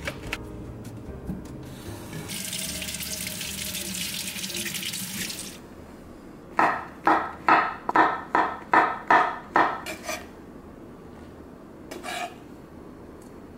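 Kitchen tap water running into a steel sink for about three seconds, then a knife slicing shiitake mushrooms on a wooden cutting board: about nine even strokes, two to three a second, then one more stroke near the end.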